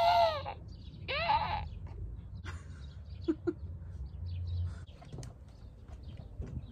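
A person imitating crow caws. There are two loud, arching caw calls, one at the very start and one about a second in, each about half a second long. After them come only faint scattered taps over a low steady rumble.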